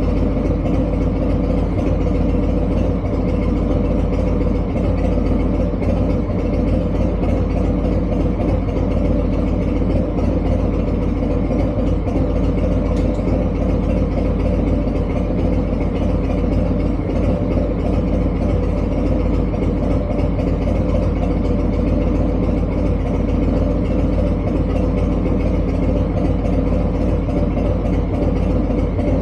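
Harley-Davidson V-twin with a TBR exhaust idling steadily.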